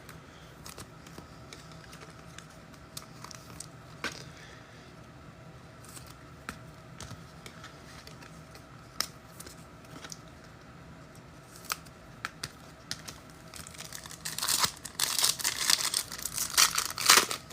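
Scattered light clicks and taps of trading cards being handled. Then, from about three seconds before the end, a burst of loud crinkling and tearing as a trading-card pack wrapper is ripped open.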